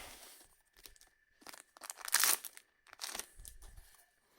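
Foil trading-card booster pack wrappers crinkling as they are handled, in several separate rustling bursts, the loudest about two seconds in.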